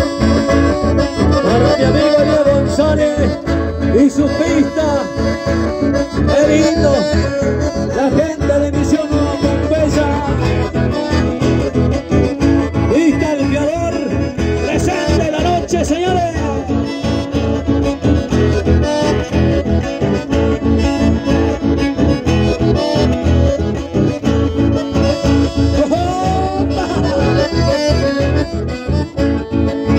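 Live accordion-led dance music with guitar, playing loudly with a steady beat.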